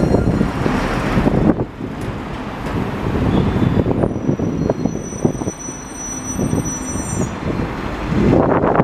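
A bus, train or tram running past: a steady rumble with scattered knocks and clatter, and a faint high whine from about four seconds in to about seven seconds.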